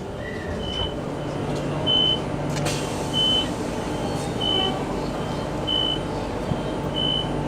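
Electric train's door signal beeping while the doors stand open at a station: a short high beep about every 1.3 s, alternating loud and soft, over the steady low hum of the stopped train. A brief clunk sounds about two and a half seconds in.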